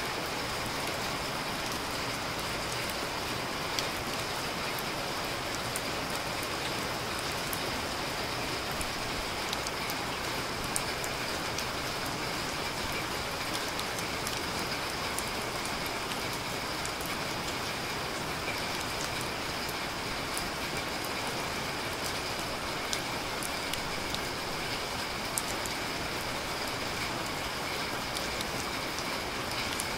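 Steady rain falling, an even hiss with a few faint clicks scattered through it.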